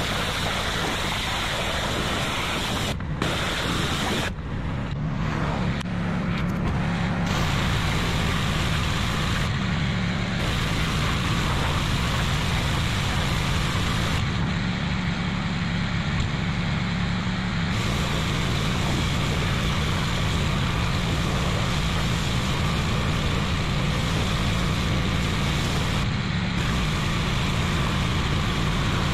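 Steam cleaner (hot-water pressure washer) running steadily while spraying through a 25-degree nozzle: a low machine hum under a loud hiss of spray. The hiss cuts out briefly several times.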